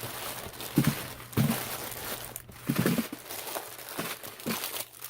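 Plastic packaging crinkling and rustling as bagged items are handled and pulled out of a shipping box, with a few short low thumps.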